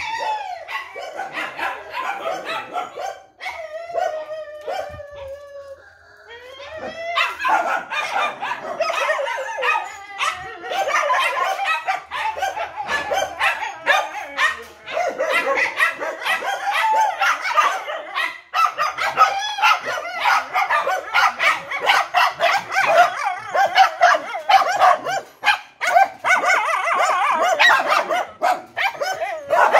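A pack of penned dogs barking and yelping together. There are scattered calls at first, and from about seven seconds in the chorus becomes dense and continuous.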